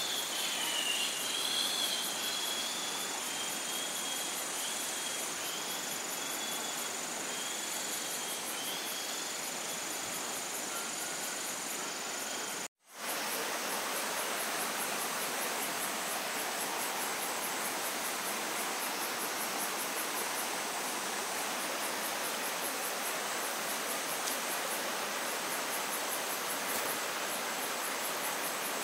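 Insects chirping in fast, evenly repeating pulses over a steady hiss of background noise. The sound drops out for an instant about 13 seconds in, where two clips are joined.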